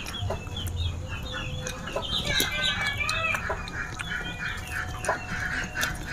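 Chickens clucking steadily, with a stream of short chirping calls and a few light clicks.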